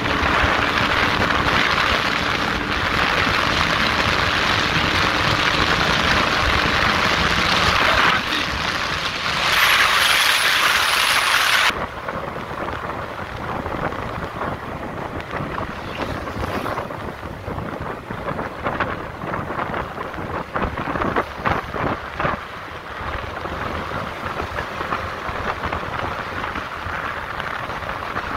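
Wind rushing over the microphone of a moving vehicle, with road noise under it. The rush is loud for the first twelve seconds, then drops off suddenly to a quieter, crackling rush.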